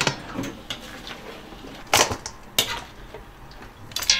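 Kitchen utensils and dishes being handled: a scattering of sharp knocks and taps, with a louder clink near the end that rings briefly.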